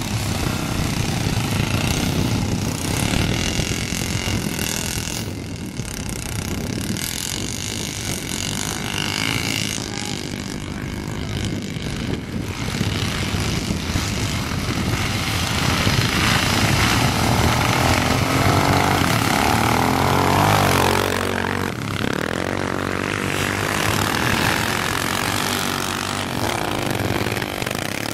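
Many Yamaha Ténéré adventure-motorcycle engines idling and revving together in a dense drone. In the second half the revs rise and fall strongly as the bikes open up, and near the end one bike revs hard close by.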